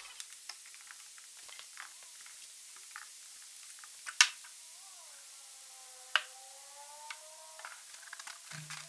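Hand-fitting a wooden end deck into a cedar-strip canoe: light scattered clicks and taps of wood handled against wood, with two sharp knocks, about four and six seconds in. A faint drawn-out wavering tone runs through the middle.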